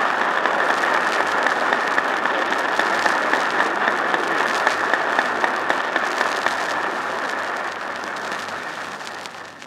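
Audience applauding, a dense patter of clapping heard through an old band-limited recording. It holds steady, then dies away over the last few seconds.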